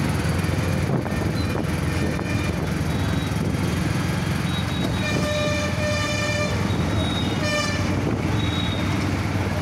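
Street traffic heard from a moving vehicle: steady engine and road rumble, with a vehicle horn honking about halfway through, held for about a second and a half, then a shorter blast.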